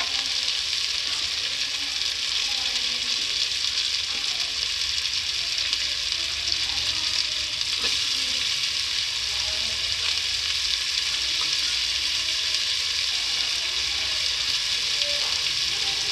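Chopped onion and spring-onion whites sizzling steadily in hot butter in a metal pot, with a wooden spatula stirring them now and then.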